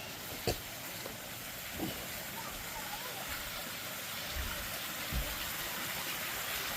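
Steady rush of flowing water, growing slightly louder, with a few low thumps about half a second in, near two seconds and about five seconds in.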